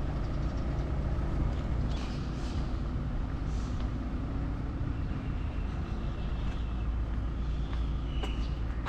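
A motor vehicle engine idling: a steady low rumble, with a short sharp click near the end.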